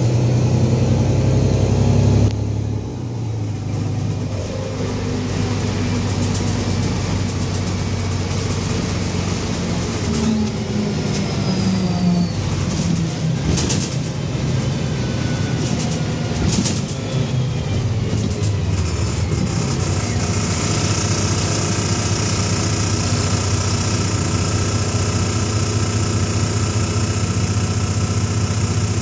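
Cummins diesel engine of a VMZ-4252 city bus, heard from inside the passenger cabin. It runs loud under load for the first couple of seconds, then drops off as the bus rolls on and slows. It settles into a steady idle for the last third, with an even hiss over it.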